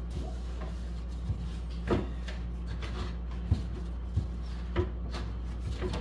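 Paper towel wiping a glass refrigerator shelf, with several light knocks and taps against the shelf scattered through, over a steady low hum.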